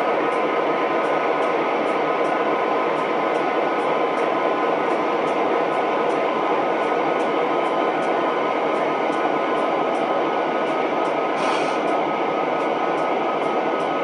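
Steady railyard sound from an idling model railroad layout: an even rumble and hiss with faint steady tones and a light tick about twice a second. A short hiss comes about eleven seconds in.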